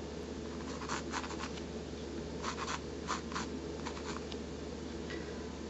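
Faint, short scratchy strokes of a sketching tool drawing lines on a painting surface, coming in small clusters over a steady low hum.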